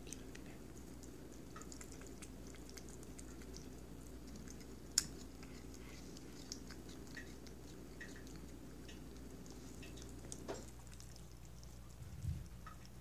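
Cat chewing pieces of raw chicken: faint wet clicks and smacks, with one sharper click about five seconds in. A steady low hum runs underneath.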